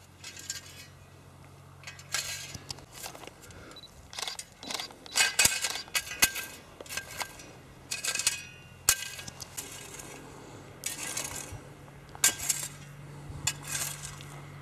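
A long-handled garden hoe chopping and scraping into dry soil around the base of a young tree, an uneven stroke about every second.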